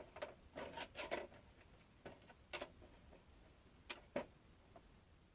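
Faint, irregular clicks and light knocks from hand-handled parts, clustered in a quick run about a second in and again in pairs around two and four seconds in.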